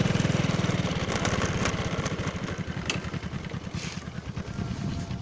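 Small motorcycle engine running while riding, a rapid, even putter that eases a little after the first second.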